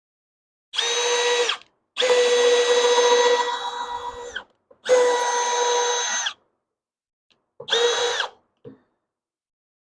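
Cordless drill running in four separate bursts, each a steady high-pitched whine lasting about one to two and a half seconds. The second and longest burst fades off toward its end.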